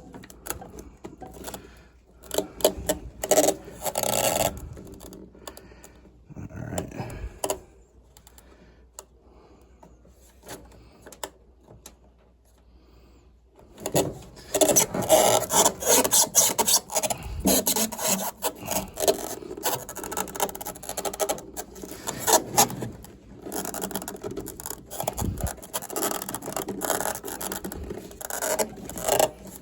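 Hand scraping and rubbing on furnace parts in quick, irregular strokes. It comes in short spells at first, goes quiet for several seconds in the middle, then runs almost without a break through the second half.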